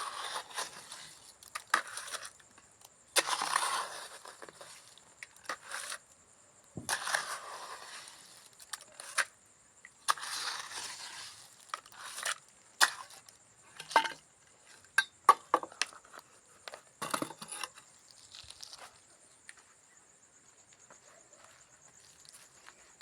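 Trowel scraping and mixing wet cement mortar in bursts of about a second, with sharp taps and clinks in between.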